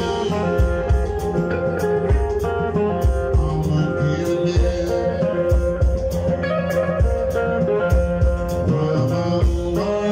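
Live electric blues band playing: electric guitar lines over bass guitar and a steady drum beat.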